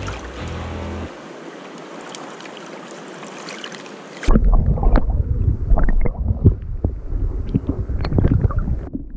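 Rushing river water as an even hiss; about four seconds in it cuts abruptly to heavy wind buffeting the microphone, with irregular knocks and bumps.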